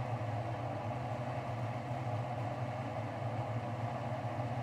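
Steady low hum of a running machine, even throughout with no clicks or knocks.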